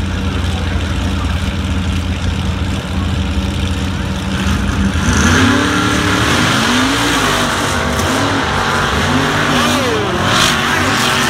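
Two off-road race vehicles, a built Jeep and a lifted pickup, running steadily at the start line. About five seconds in their engines rev hard as they launch up a snow-covered hill, the pitch climbing and dipping again and again.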